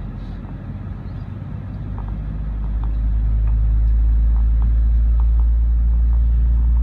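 Low rumble inside the cabin of an Airbus A320 during pushback. About two seconds in it swells to a loud, steady low drone as an engine begins to start.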